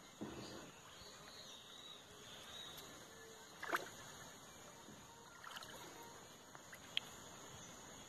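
Faint sloshing of shallow river water as a hooked tabarana is held in it by hand, with a few small splashes and a sharp click near the end, over a faint steady high hiss.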